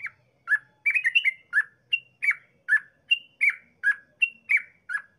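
Yellow-vented bulbul (trucukan) singing a fast run of short, clear whistled notes, about three a second. Most notes slide down in pitch, with some higher, level notes mixed in. This is the rapid, unbroken 'ropel' song that keepers play to get other trucukan singing.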